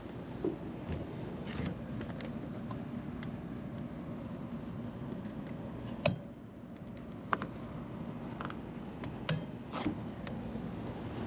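Scattered sharp clicks and light scraping from tools and metal parts being handled, over a steady low hum. The loudest click comes about six seconds in.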